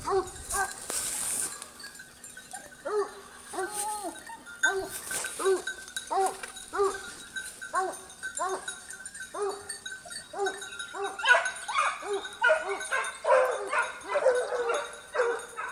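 Porcelaine hounds baying as they work a wild boar: one voice gives a steady run of bays, about one and a half a second. About eleven seconds in, several other voices join in, louder and overlapping.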